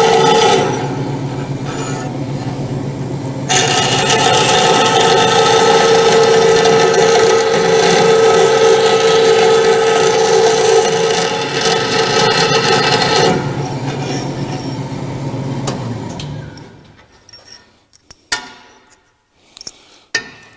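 Vertical bandsaw cutting small tabs from steel strap: a loud steady whine while the blade is in the metal, easing to a lighter running hum between cuts. Near the end the saw is switched off and runs down, followed by a few light clinks as the cut pieces are handled.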